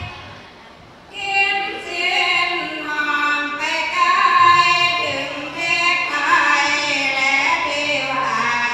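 A group of women singing sarabhanya, Thai Buddhist devotional verse, together in unison. The singing drops away briefly at the start and comes back in about a second in, then runs on in long held notes that glide up and down in pitch.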